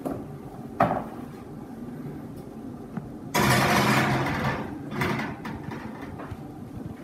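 A sharp metallic clank about a second in, then a metal muffin tin scraping along the wire oven rack for about a second as it is slid into the oven, with a shorter scrape a second later.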